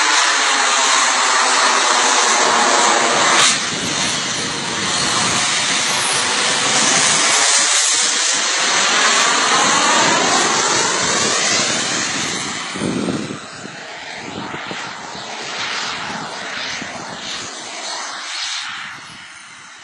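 A model jet's turbine engine flying past with a loud whine and rush, the pitch sweeping as it passes, then fading as it moves away in the second half. There is a brief knock about three and a half seconds in.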